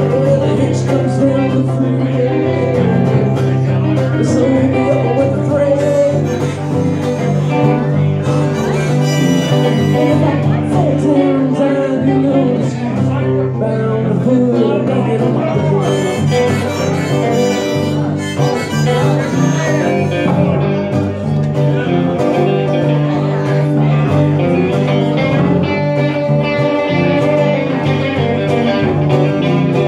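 Live band playing a bluesy country tune, with strummed acoustic guitar, electric guitar and harmonica.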